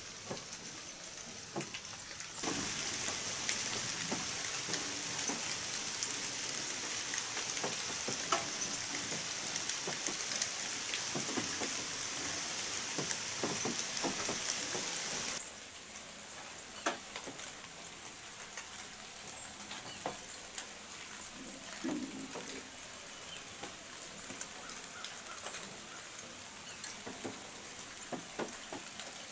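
Rain falling, a steady hiss with many scattered drips. The hiss is heavier from about two seconds in until about halfway, then drops suddenly to a lighter patter.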